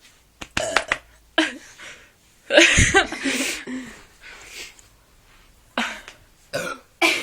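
Several short burps from people trying to burp on purpose, the loudest and deepest about two and a half seconds in, with coughing and laughter between them.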